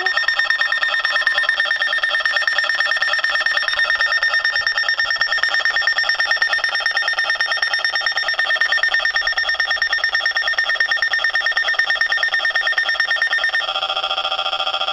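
Emergency Alert System broadcast audio malfunctioning: a loud, continuous, rapidly pulsing electronic tone carries on with no voice message. Near the end it switches abruptly to a different set of pitches. The uploader takes this for a fault in the alert-issuing system.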